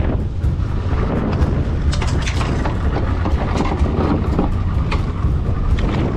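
Heavy wind rumble buffeting the microphone of a boat at sea, with scattered sharp clicks over it.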